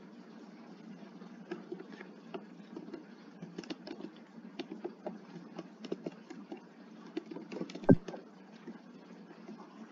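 Typing on a computer keyboard: slow, uneven keystrokes, a few a second, with one louder thud about eight seconds in.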